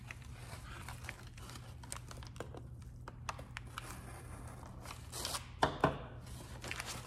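Brown kraft wrapping paper crinkling and rustling, with small ticks and scrapes from a metal tool worked against a plastic airbrush case. There are two louder knocks about five and a half seconds in.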